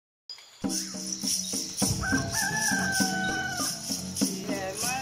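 A rooster crows once, a long held call from about two seconds in, over the start of music with a steady percussion beat.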